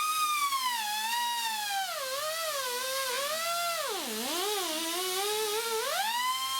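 Angle grinder with a wire wheel brushing down welds, its motor whine sagging and recovering in pitch as the wheel is pressed onto the metal, with the most load about four seconds in, over the hiss of the bristles.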